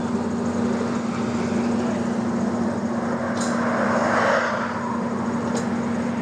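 A heavy engine running steadily with a constant low hum, swelling louder for about a second near the middle, with two sharp clicks a couple of seconds apart.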